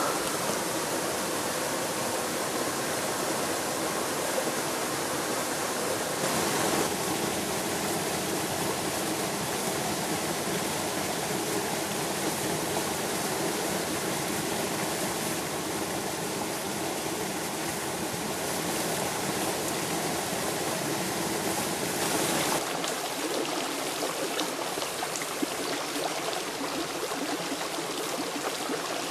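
A small waterfall is splashing into a shallow river pool as a steady rush of water. About three-quarters of the way through, the sound changes abruptly to a shallow stream running over rocks, with less low rumble.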